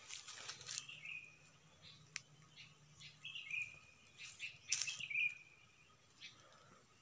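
Orchard ambience: a steady high-pitched insect drone, with a bird giving three short calls that slide down and hold, about one, three and a half and five seconds in. A few soft knocks and rustles, the loudest around five seconds in.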